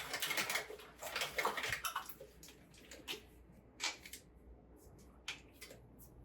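Water splashing at a bathroom sink as a face is washed. A busy run of splashes fills the first two seconds, then comes a handful of separate single splashes.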